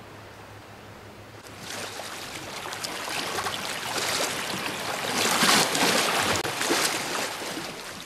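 Shallow water washing and splashing over stones, a dense patter of small splashes. It starts suddenly about a second and a half in, grows louder toward the middle, and cuts off abruptly at the end.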